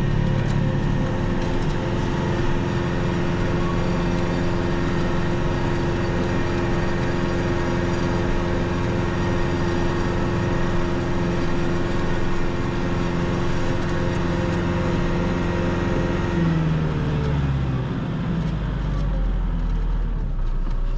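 Kubota MX6000 diesel tractor running steadily with its PTO-driven WoodMaxx SB72 snowblower clearing snow. About three-quarters of the way through, the engine note drops in pitch as the revs come down.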